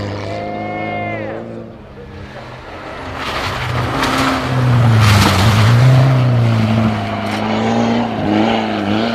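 Rally car engine driven hard. The revs fall away about a second in, then the car comes closer and is loudest about five to six seconds in, with a rush of noise as it passes. The engine note dips and climbs again at gear changes.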